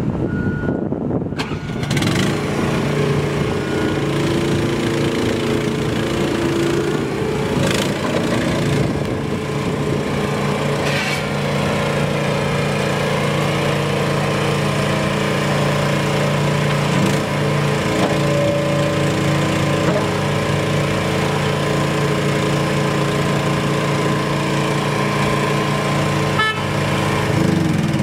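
Engine of a mini tracked skid steer running steadily while the loader arms raise and lower the bucket. Its pitch shifts slightly now and then, and there are a few short knocks.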